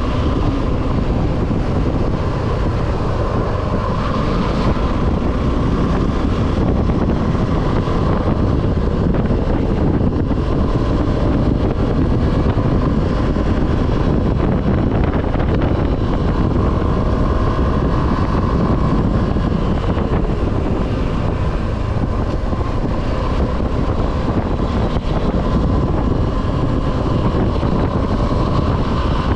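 Wind rushing over the camera microphone on a moving motorcycle, with the Suzuki V-Strom 250 SX's single-cylinder engine running underneath at a steady cruise.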